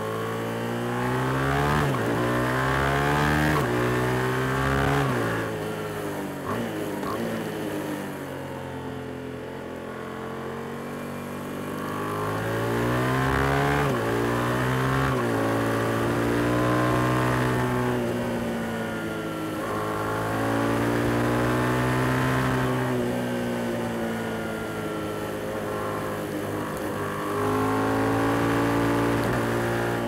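Yamaha MT-07's 689 cc parallel-twin engine under way, with the rider's seat close to the engine. The revs rise and fall over and over, climbing in pitch under acceleration and dropping back as the throttle is eased between bends.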